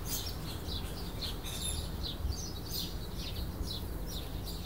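Small birds chirping continuously in the background, quick short notes that slide downward, three or four a second, over a low steady hum.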